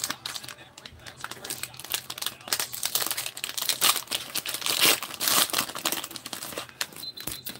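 Plastic cellophane wrapper of a Donruss football cello pack crinkling and tearing as it is pulled open by hand and the cards are slid out. A dense, crackly rustle that is loudest around the middle.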